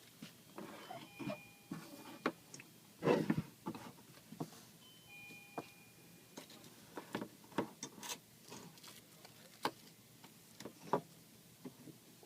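Scattered clicks, taps and short rustles of objects being handled, with a louder cluster about 3 seconds in. Two faint short steady tones sound, one about a second in and one about five seconds in.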